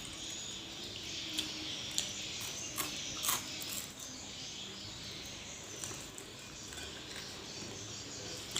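Eating sounds: four short sharp clicks and smacks of chewing and lips in the first half, over a steady high hiss of background ambience.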